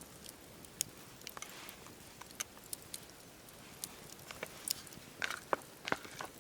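Wood fire crackling: irregular sharp pops and snaps over a low hiss, coming thicker and louder in the last second or so.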